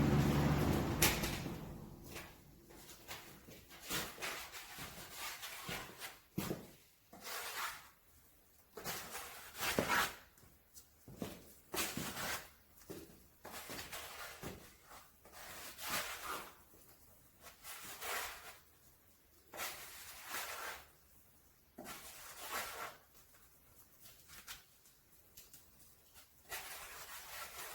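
Body filler and hardener being mixed with a spreader on a mixing board: irregular short scrapes, one every second or two. A steady hum fades out in the first two seconds.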